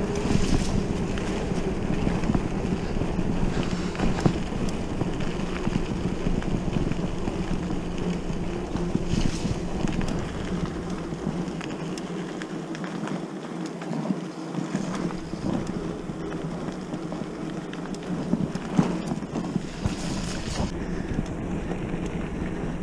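Mountain bike rolling along a gravel trail with wind buffeting the microphone: a steady rolling hum with small knocks from the surface, and the low wind rumble eases off for a few seconds midway.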